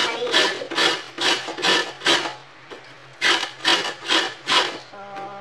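Broccoli being grated on a flat metal hand grater: quick scraping strokes, about two or three a second, with a pause of about a second in the middle.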